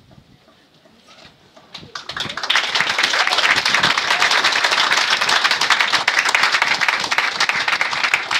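Crowd applause: a quiet first two seconds, then many people clapping, loud and steady.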